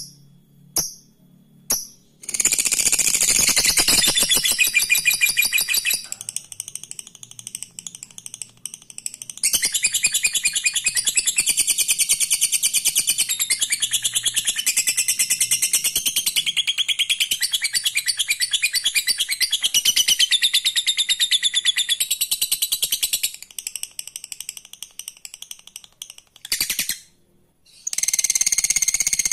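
Lovebird ngekek: long bouts of rapid, high-pitched chattering trill. The longest bout runs about thirteen seconds, and a couple of single chirps come before the first.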